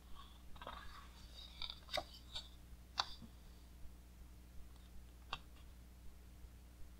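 Page of a large art book being turned: faint paper rustling with a few sharp flaps and taps, the sharpest about three seconds in.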